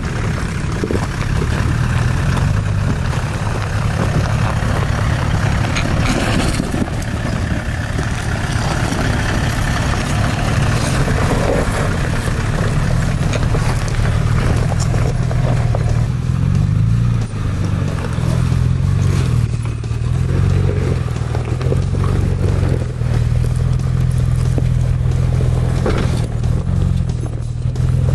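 Toyota 4x4 trucks crawling a rocky trail: engines running at low revs with tyres scraping and clattering over rock.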